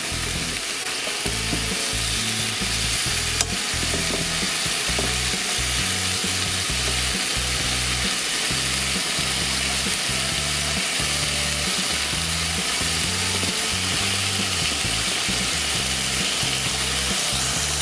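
Marinated pork belly slices sizzling steadily in a hot frying pan over medium heat.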